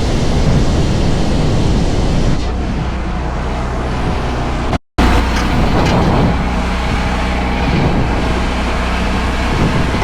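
Mini excavator's engine running steadily, with a brief complete dropout about five seconds in.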